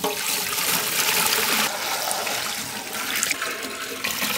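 Milk pouring in a steady, heavy stream into a pot already full of milk, splashing and gurgling.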